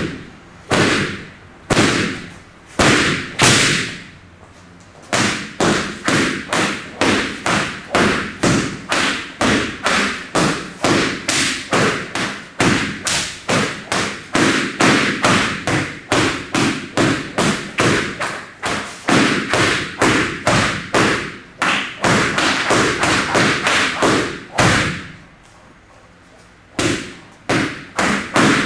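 Sjambok whip slapping a hanging heavy bag in continuous flow: a few spaced strikes, then a fast even run of about two to three sharp slaps a second. The strikes break off for about two seconds near the end, then resume.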